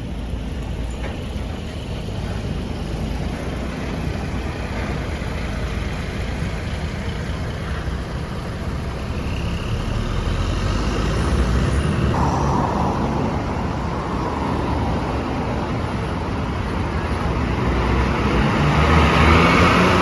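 Road traffic going by: steady engine and tyre noise from passing vehicles, louder near the end as one passes close.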